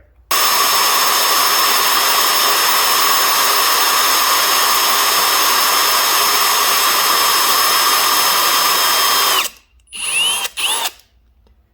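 Electric hand drill boring into a broken-off bellhousing bolt in a small block Chevy 350 block: it runs at one steady speed for about nine seconds, then stops and winds down. Two short bursts of the drill follow near the end.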